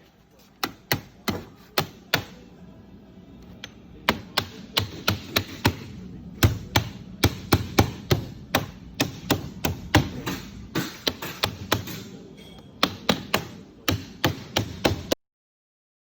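Rapid sharp knocks of sheet-metal duct fabrication work, coming about three a second in runs with short pauses, and cutting off abruptly near the end.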